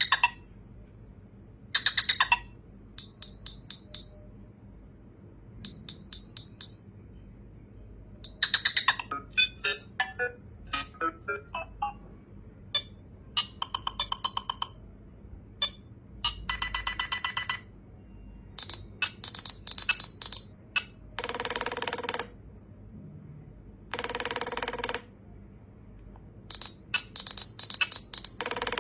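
Nothing Phone (1) playing a run of its Glyph ringtones and notification sounds: short bursts of rapid electronic clicks and high blips, separated by brief pauses, with two longer buzzing tones of about a second each late on.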